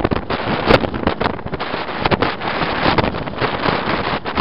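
Wind buffeting the microphone in the cab of a moving vehicle, over steady road and engine noise, with frequent irregular knocks and bumps.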